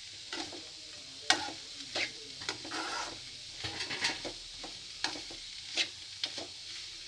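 Metal spoon scraping and stirring sliced onions and green chillies in a metal kadai, in irregular scrapes a few a second, over a soft sizzle of the onions frying in oil as they are sautéed.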